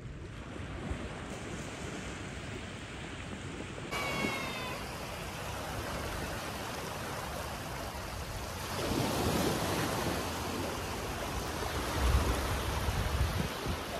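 Small waves washing up on a sandy beach, with one louder wash about nine seconds in. Near the end, wind gusts on the microphone add a low buffeting rumble.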